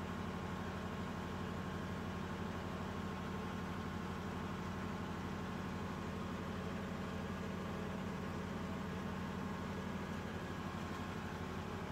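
A machine's motor running steadily at a constant speed: a low, even drone with a fast regular pulse.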